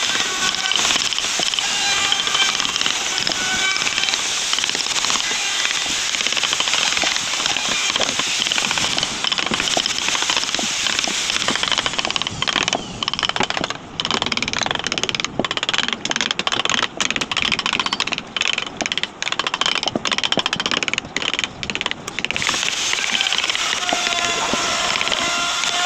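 Hand woodcarving: a mallet tapping rapidly on a carving gouge as it cuts into a wooden relief panel. About halfway through, the tool noise breaks into many short separate strokes with brief gaps between them.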